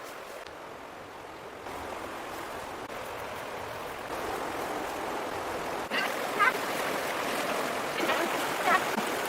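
Rushing water, a steady hiss that steps up in loudness about two seconds in and again about four seconds in, with a couple of short high-pitched calls about six seconds in and near the end.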